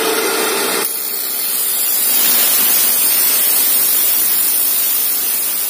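Abrasive cut-off saw (chop saw) running at speed. About a second in, its disc bites into a metal motorcycle exhaust pipe, and a steady harsh grinding hiss of abrasive cutting through metal takes over.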